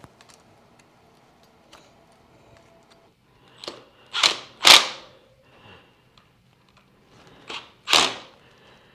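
Short, sharp tool noises while fastening the front fender to a dirt e-bike: three quick bursts in a row about halfway through, then two more near the end.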